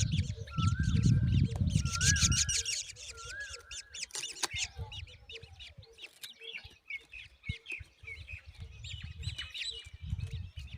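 Black drongo and other birds chirping and calling. A rising-and-falling whistle repeats about once a second for the first few seconds, over many short high chirps, with a soft note pulsing about twice a second throughout and a low rumble at the start and again near the end.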